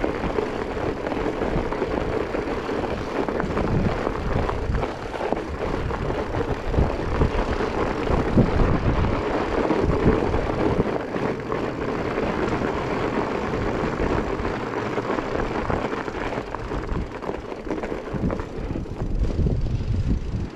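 Strong wind buffeting the microphone while riding a fat bike over packed snow: a steady rushing noise with irregular low gusts.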